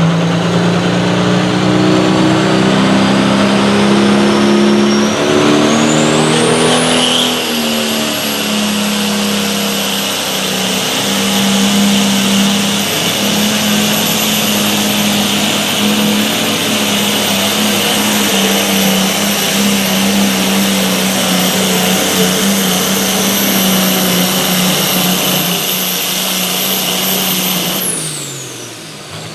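International Harvester diesel pulling tractor running under full load as it drags a weight-transfer sled, with a steady heavy engine note and a high turbo whistle that climbs over the first several seconds and then holds. Near the end the engine note drops away as the throttle comes off.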